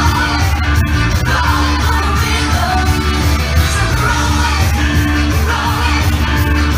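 Loud pop music with a sung vocal and a steady heavy bass, played over a dance-floor sound system.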